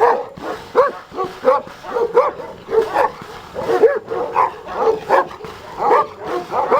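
Caucasian Shepherd dog barking repeatedly, about two barks a second without a break.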